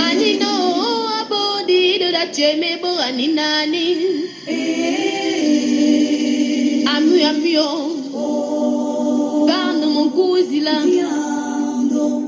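Traditional Gabonese Fang song for the elone dance: voices singing a wavering melody over steady held low notes, with a brief dip about halfway through.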